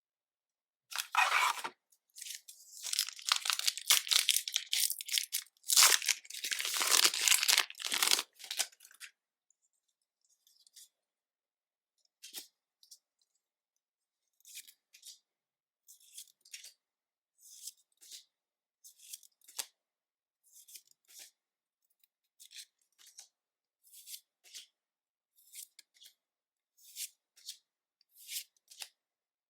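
Pokémon trading-card packaging being torn open: a run of loud ripping and crinkling for about eight seconds, then soft short ticks roughly once a second as cards are handled one at a time.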